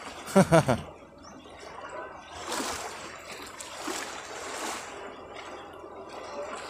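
Seawater lapping and sloshing against a boat hull, swelling and easing every second or so. A short burst of a voice about half a second in.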